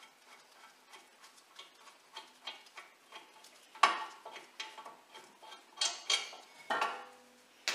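Light metallic clicking and clinking from a Land Rover Discovery 3 front brake caliper carrier bolt being spun out by hand, with a louder clink about four seconds in and a few more around six to seven seconds.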